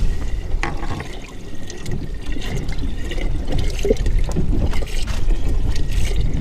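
Water splashing and trickling around a small boat, with wind rumbling on the microphone.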